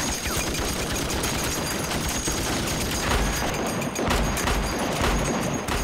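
Sustained battle gunfire: many guns firing rapidly at once in a continuous fusillade, with deep booms joining in from about three seconds in.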